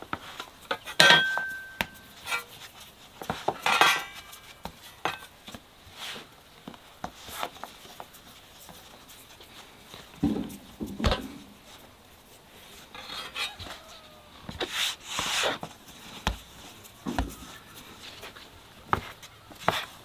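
Dough being handled on a wooden board: scattered light knocks and rustles as green pasta dough is kneaded and shaped into balls, with a clink and a short ring about a second in and a few duller thumps near the middle.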